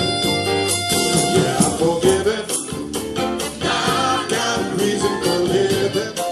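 Live band music with a steady drum beat; a horn holds a long note that fades in the first second and a half, and singing runs over the music.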